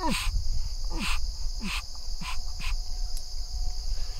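Weekend Warrior duck call blown in five short, soft notes, each falling in pitch. A steady chorus of crickets or other insects runs underneath.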